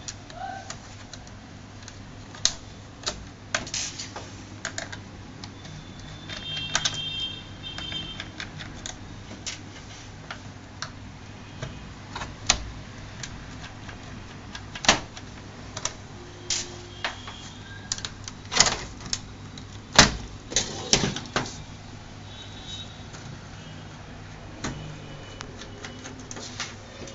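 Irregular sharp clicks and taps of a small screwdriver and tiny screws against a laptop's plastic screen bezel as the bezel screws are taken out, with one louder knock about two-thirds of the way through. A steady low hum runs underneath.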